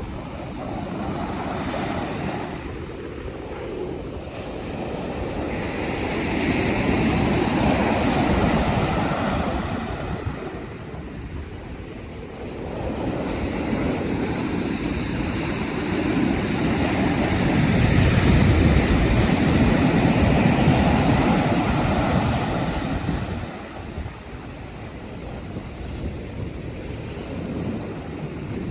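Pacific Ocean surf: waves breaking and washing up the shore in a steady rush of noise that swells and ebbs in slow surges, twice building to a loud peak.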